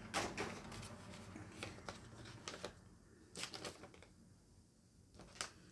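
Light handling sounds of small cosmetic products and their packaging being moved about: a scatter of soft clicks and rustles, a few of them in quick pairs, loudest near the start.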